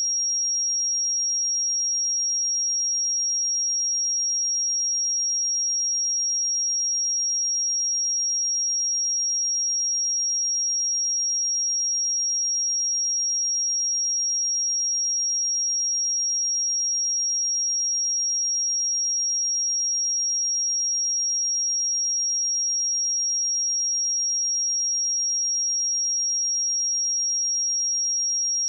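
A pure 5623 Hz sine-wave test tone, one steady high-pitched tone held at a constant level.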